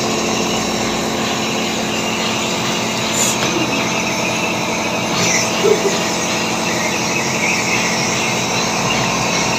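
A steady mechanical hum and hiss with faint high whining tones, unchanging throughout, with a faint short click about three seconds in.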